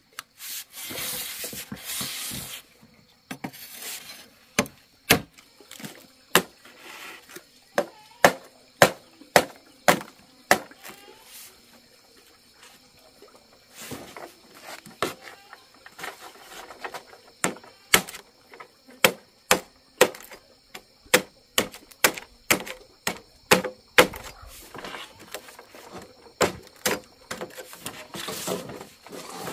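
Heavy cleaver chopping into a green bamboo pole on a wooden block: a long run of sharp chops, about one to two a second, with a brief rasping stretch about a second in.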